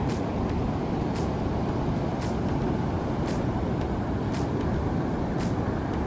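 Steady low rumble of ocean surf breaking along the beach.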